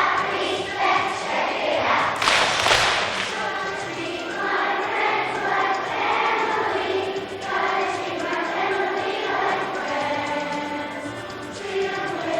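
Children's choir singing with instrumental accompaniment, held notes over a steady bass line; a brief burst of noise about two seconds in.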